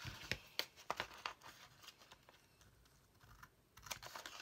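Paper rustling and crinkling as hands handle and press a map-paper envelope, with a few light ticks. A quieter lull in the middle, then more rustling near the end.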